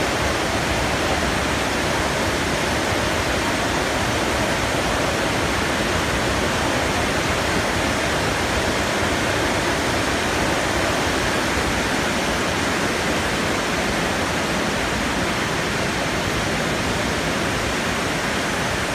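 Steady, even rushing of water at a constant level.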